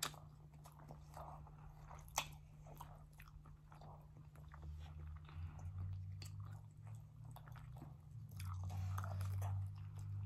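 Close-up mouth sounds of people chewing pizza and a bready puff roll, with biting and a few sharp crunchy clicks, the sharpest at the start and about two seconds in. A steady low hum runs underneath and grows louder from about halfway.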